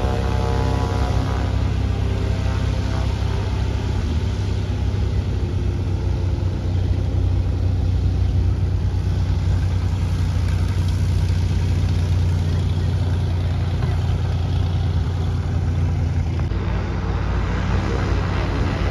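Piston engine and propeller of a single-engine light aircraft taxiing at low power: a steady, loud, low drone.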